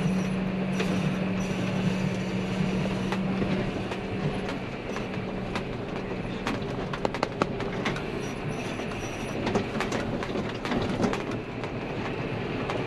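John Deere tractor running along a rough dirt track, heard from inside the cab, with many short rattles and clatters from the cab and the empty dump trailer over the bumps, most frequent in the second half. A steady hum is strong for the first few seconds, then fades.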